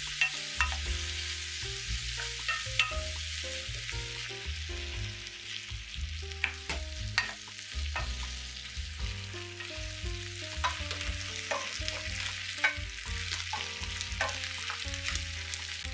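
Eggplant and bell pepper pieces sizzling in oil in a nonstick frying pan as they are stirred with a wooden spoon. Scattered sharp knocks come from the spoon striking the pan.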